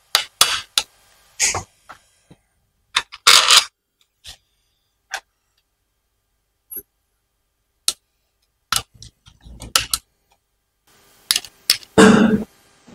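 Small metal clicks and rattles of a bolt and nut being fitted by hand through a children's tricycle's front fork and wheel axle, coming at irregular intervals with quiet gaps between them. A louder, duller sound comes near the end.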